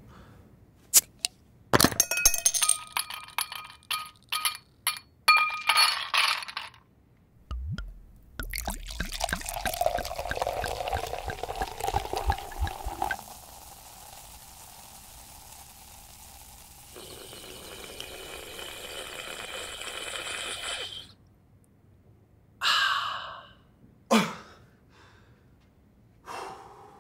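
A recreation of classic Coca-Cola bottle sounds: a run of glassy clinks and clicks, then a pouring rush, then a long steady fizz, ending in a couple of short breathy 'ahh'-like exhalations.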